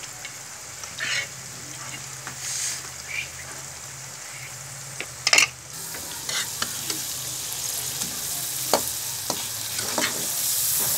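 Onion and ghee masala with whole boiled tomatoes sizzling in a metal karahi, a metal spoon stirring and scraping the pan with scattered sharp clinks, the loudest about five seconds in. The sizzle grows louder near the end.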